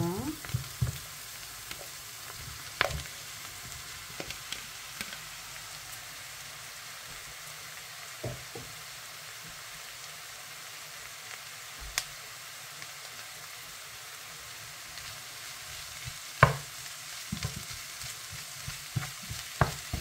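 Chopped onions sizzling softly in a non-stick frying pan as a heap of blanched, chopped nettles is tipped in. A steady gentle sizzle runs under a few sharp clicks and taps of a wooden spatula against the pan, the loudest knock about sixteen seconds in, with more stirring taps near the end.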